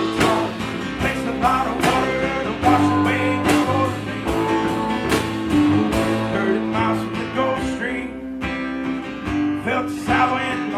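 A band playing an instrumental passage of a song, led by guitar over a steady beat of drum hits.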